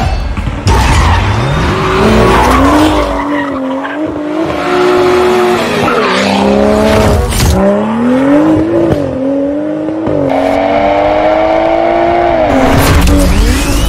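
BMW F82 M2's turbocharged 3.0-litre N55 inline-six through an ATZ aftermarket exhaust, revved hard as the car drifts, its note climbing and dropping again and again, with tyres squealing.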